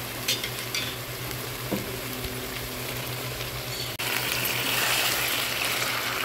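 Beef chunks sizzling in hot oil with fried onions in a pot as they are stirred with a spatula, with a couple of light knocks in the first second. The sizzle gets suddenly louder about four seconds in.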